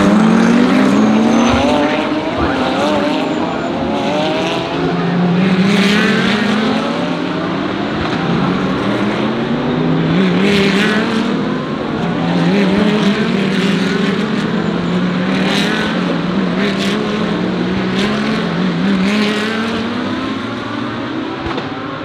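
GT3 race cars accelerating past one after another, their engines climbing in pitch and dropping back with each upshift, over and over.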